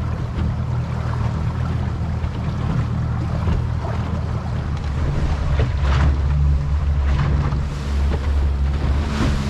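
Small boat's outboard motor running underway, a steady low drone, with wind and water rushing past the hull; the drone grows louder about six seconds in.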